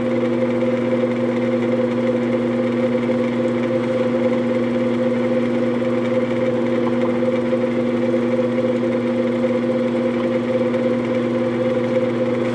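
Benchtop drill press running with a steady, unchanging hum while a thin 3/32-inch bit drills stopped holes in small pieces of wood.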